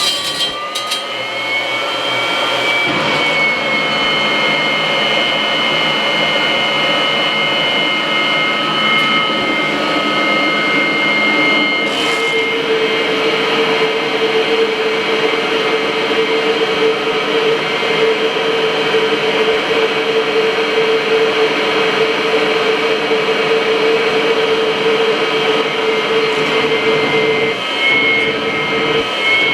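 Kirby vacuum cleaner running steadily with a high whine. About twelve seconds in, a lower steady tone joins in and holds to near the end.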